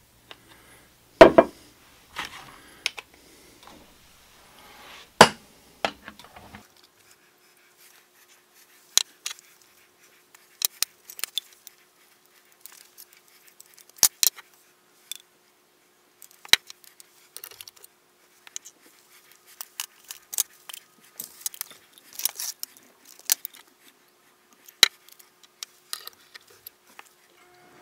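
Metal-and-glass clinks and knocks as a hand-held soft-plastic bait injector is filled from a glass measuring cup and handled at aluminium molds: scattered sharp clicks, the loudest two about a second and five seconds in.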